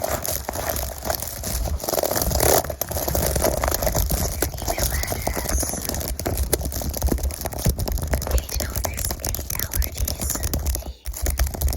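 Fast, dense crinkling and scratching close to the microphone, full of small clicks, over a low rumble.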